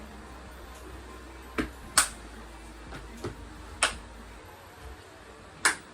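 Five sharp clicks or knocks at uneven intervals, the loudest about two seconds in, over a low background hum that fades out about two-thirds of the way through.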